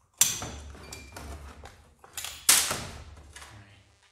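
Metal clinks and knocks of chainsaw parts (bar, chain and side cover) being handled on a workbench: a sharp knock with a brief ring just after the start, lighter clicks and rattles, and a louder knock about two and a half seconds in.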